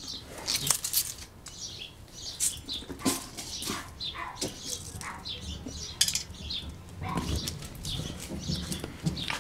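A dog scuffling about at close range: irregular taps, scrapes and rustles with no steady rhythm.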